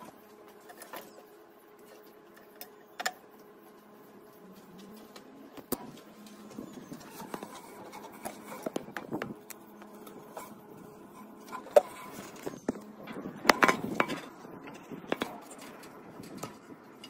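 Scattered clicks, knocks and rustling of gloved hands working among a jeep's engine wiring harness and its plastic plug connectors, with a busier run of knocks about three-quarters of the way through. A faint steady hum runs under the first few seconds.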